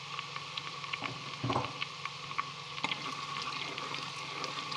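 Chopped onion, ginger-garlic paste and curry leaves frying in hot oil in a steel pot, a steady sizzle full of small crackles and pops. A spoon is stirring, with one louder knock about a second and a half in.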